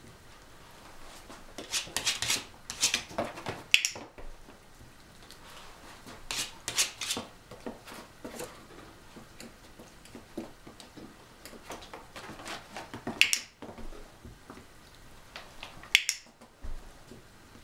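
Sharp, brief clicks at irregular moments, some single and some in quick clusters of two or three, a few seconds apart.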